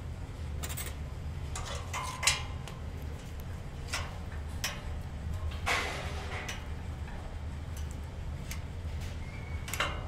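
Dishes and utensils clinking and knocking at irregular intervals over a steady low hum.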